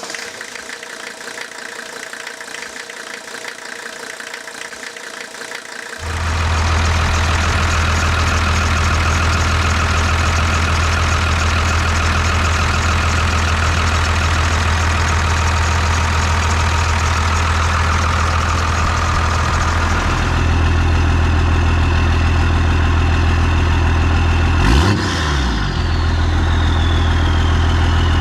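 12-valve Cummins 5.9-litre inline-six turbo diesel in a 1993 Dodge Ram 250 idling loud and steady from about six seconds in, with a single quick rev near the end. As the revs drop, the turbocharger whistles and winds down in pitch.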